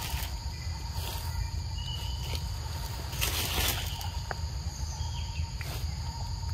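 Steady high insect drone over a low outdoor rumble, with a few short rustling noises; the longest and loudest comes about three seconds in and lasts about half a second.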